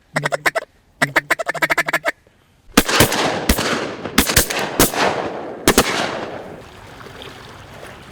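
A mallard duck call blown in two fast runs of quacks, followed a second later by a volley of about eight shotgun shots from several guns over roughly three seconds, each shot echoing away.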